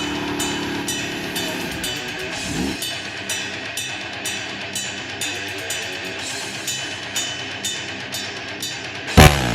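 Background rock music with a steady drum beat and guitar. A low steady drone underneath ends within the first three seconds, and a loud sudden hit comes near the end.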